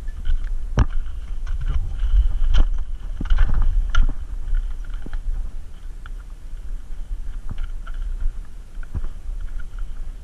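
Wind buffeting the microphone in a steady low rumble, with a few sharp knocks and clicks of rod-and-reel handling as a hooked striped bass is fought in.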